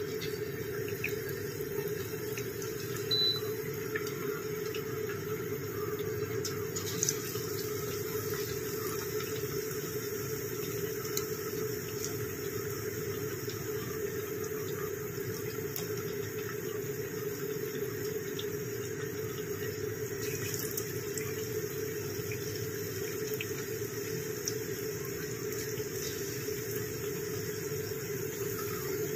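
Batter-coated eggplant slices deep-frying in hot oil in a kadhai: a steady sizzle and bubbling with a few small pops.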